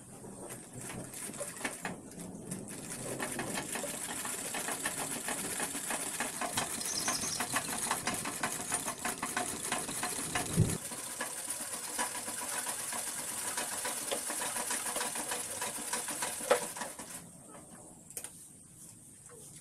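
Restored Regnis treadle sewing machine stitching cloth: a rapid, even clatter of the needle mechanism that builds up over the first few seconds, runs steadily, and stops about 17 seconds in.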